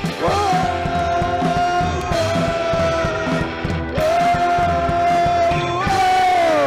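Live rockabilly band playing: a singer holds two long notes, the second sliding down near the end, over upright double bass, drums and electric guitar.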